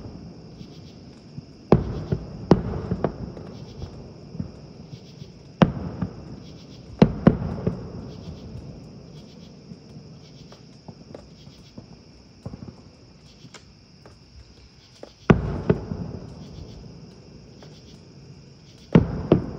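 Aerial fireworks shells bursting, a series of sharp booms each trailing off in a rumble: a cluster of about six in the first eight seconds, one in the middle, and another near the end. Crickets chirp steadily underneath.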